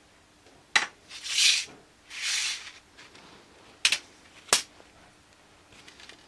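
Workbench handling sounds from hobby model building: a sharp click, two short scraping or rubbing strokes, then two more sharp clicks as small tools and parts are picked up and set down.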